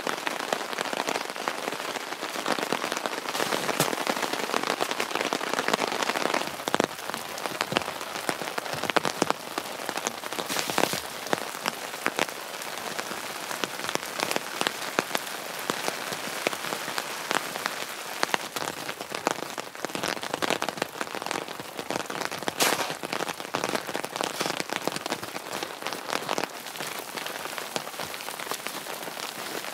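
Heavy rain falling steadily, with many individual drops striking close by as sharp ticks.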